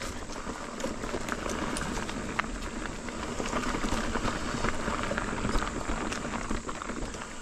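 Ibis Ripley mountain bike rolling over a dirt trail: a steady crunch of tyres on ground with many scattered clicks and rattles.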